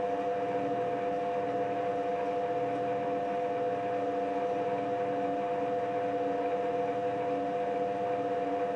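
HBM 250 Vario benchtop metal lathe running steadily with the leadscrew power feed engaged for threading, driving the carriage along the bed. It makes an even two-note whine over the hum of the motor and gear train.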